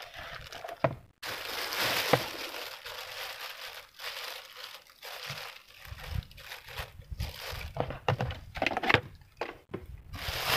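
Crinkling and rustling of something handled close by, broken by irregular clicks and knocks, loudest about one to three seconds in.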